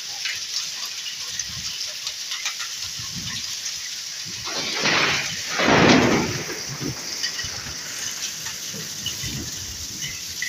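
A hailstorm: hail and rain falling steadily, with many small scattered ticks of hailstones striking. About halfway through, a loud rushing surge swells up and dies away over about two seconds.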